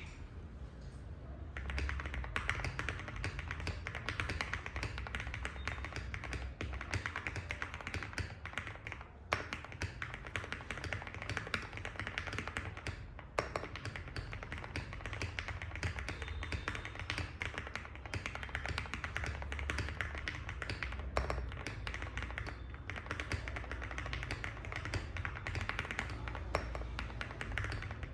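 Steady typing on a gasket-mounted Zoom TKL mechanical keyboard with an aluminium plate, lubed and broken-in Cherry Hyperglide Black linear switches and SA-profile keycaps: a dense stream of key clacks starting about a second and a half in, with a few louder single strikes.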